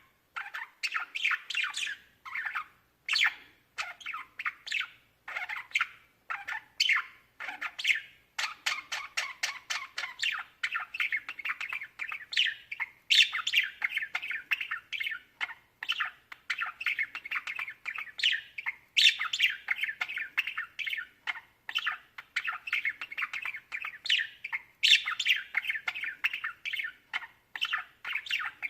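Budgerigars chattering and warbling: rapid strings of short chirps with sharper squawking calls breaking in every few seconds.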